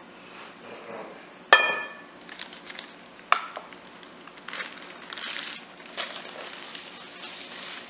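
A glass mixing bowl gives one sharp ringing knock about a second and a half in, and a smaller clink a couple of seconds later. Then plastic starch and flour bags crinkle and rustle as they are folded and handled.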